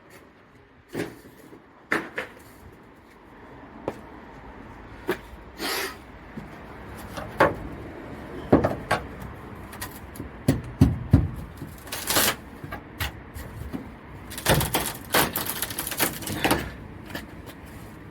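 Irregular knocks, clunks and scrapes of wood, with a dense burst of scraping and banging near the end, as the van's old plywood floor lining is pulled out.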